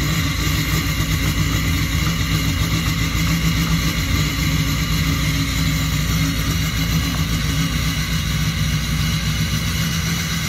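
Emissions-deleted Duramax LML 6.6-litre V8 turbodiesel idling steadily in extreme cold after a cold start.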